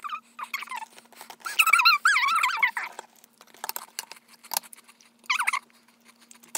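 Sped-up speech: a high-pitched, chipmunk-like voice chattering in quick bursts, loudest a couple of seconds in, with short clicks scattered between.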